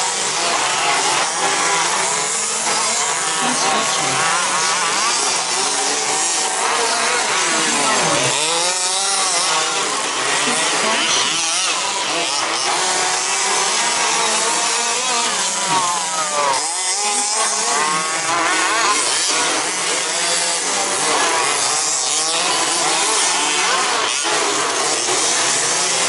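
A pack of 1/10-scale electric 2WD RC buggies racing on a dirt track, several motors whining at once, their pitch rising and falling as the cars accelerate and brake through the corners.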